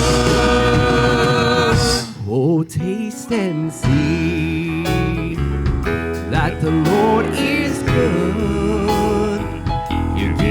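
Country-style gospel worship music with guitar: a full held chord that breaks off about two seconds in, then a quieter passage with a wavering melody line over the instruments.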